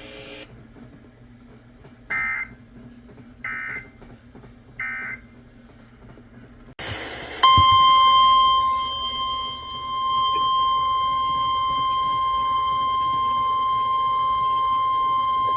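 Three short, buzzy bursts of Emergency Alert System SAME digital data, then a steady single-pitch NOAA Weather Radio alert tone. The alert tone starts after a brief click about seven seconds in and is held for about nine seconds. It marks the start of a new warning broadcast.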